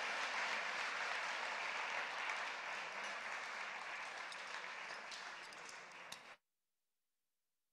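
Audience applauding, slowly dying down, then cut off abruptly about six seconds in.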